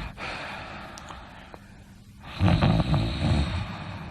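Snoring: a fainter breath, then about two and a half seconds in a loud, low, buzzing snore that fades near the end.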